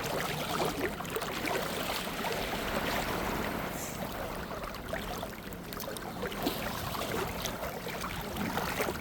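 Shallow sea water sloshing and lapping steadily at the shore, an even wash of water noise.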